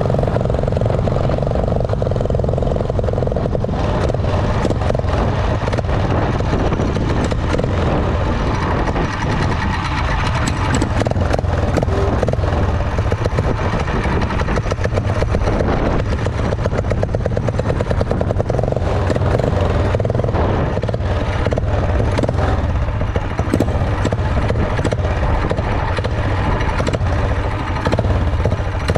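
A 212 cc single-cylinder four-stroke engine on a motorized bicycle running steadily while the bike is ridden along, with a constant low hum and a rushing noise over it.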